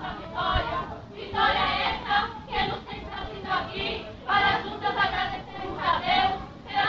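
A group of girls' voices chanting in unison in a choral recitation (jogral), in short phrases with brief pauses between them.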